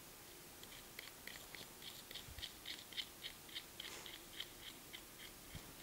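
Faint, even clicking at about four ticks a second as the Abe spinning wheel's black plastic tensioner fan is spun by hand down a threaded bolt.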